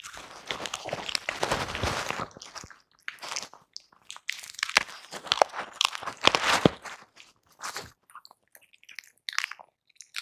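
Two toy poodles crunching and chewing hard treats, a dense run of irregular crunches that thins out to a few scattered ones near the end.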